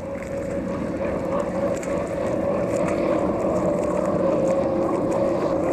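Unlimited hydroplane racing boat's engine running flat out across the water, a steady high drone that grows gradually louder as the boat approaches.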